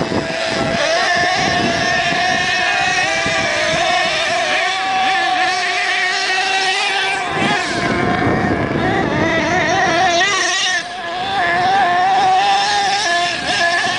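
Small glow-fuel nitro engine of an HPI Savage RC monster truck running hard at high revs: a steady high buzz that wavers slightly with the throttle, dipping briefly about eleven seconds in.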